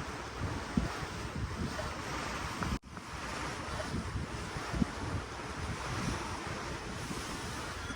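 Ocean waves washing against a cruise ship, with wind buffeting the microphone in gusts. The sound cuts out for an instant about three seconds in.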